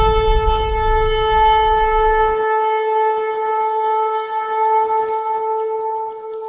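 Intro music: one long, steady horn blast held on a single note, with a deep rumble beneath it for the first couple of seconds. The note fades away near the end.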